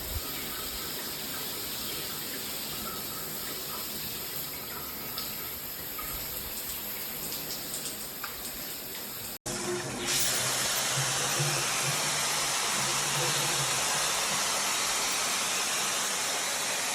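Handheld shower head spraying water: a steady hiss of running water. After a cut about nine seconds in, the spray is louder.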